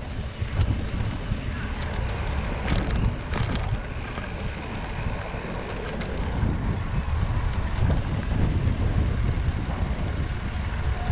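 Wind buffeting the microphone of an action camera on a moving bicycle, a steady low rumble, with a couple of short clicks about three seconds in.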